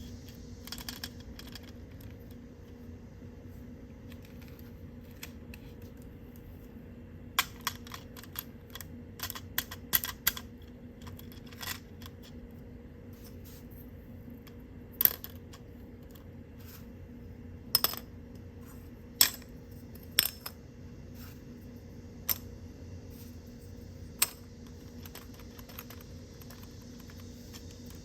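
Sharp clicks and taps of small plastic toy pieces being handled and set down, scattered irregularly with a busy cluster partway through and single clicks later, over a steady low hum.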